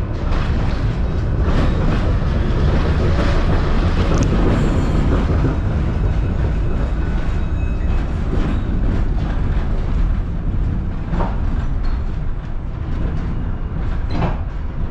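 Tram running on its rails, heard from on board: a steady, loud low rumble of the wheels, with a few sharp clacks as they cross rail joints.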